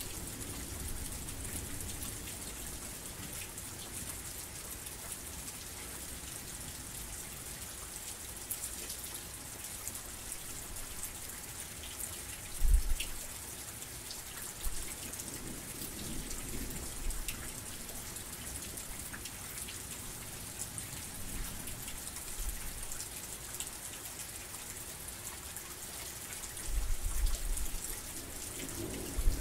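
Heavy rain falling steadily: a dense hiss with individual drops ticking through it. A few brief low thumps break in, the loudest about twelve seconds in and a longer one near the end.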